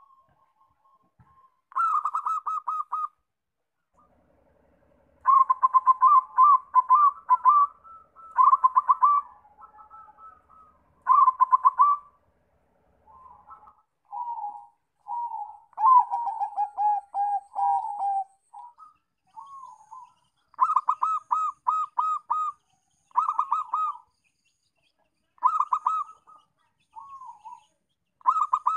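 Zebra doves (perkutut) singing: repeated phrases of rapid staccato cooing notes, each about a second long with short pauses between, some phrases in the middle softer and falling in pitch.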